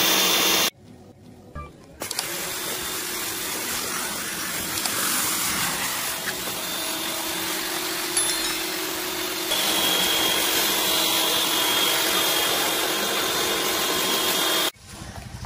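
APR AP73 electric pressure washer running: a steady motor hum under the hiss of water spraying from the gun and foam cannon. The sound cuts out briefly about a second in, and its level shifts about halfway through.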